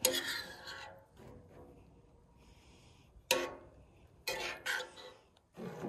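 A metal spoon scooping in a cast-iron skillet, with a few brief ringing clinks against the pan. The sharpest clink comes about three seconds in.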